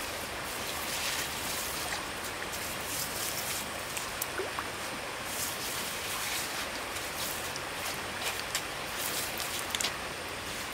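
Stream water running steadily, with scattered light ticks and small splashes over it.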